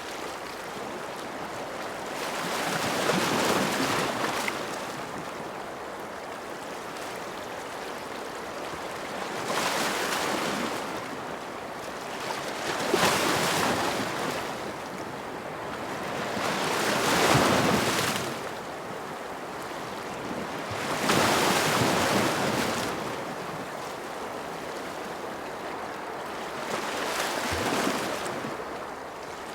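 Ocean surf: waves breaking and washing in about six times, each swell of rushing water rising and falling over a few seconds, over a steady background hiss.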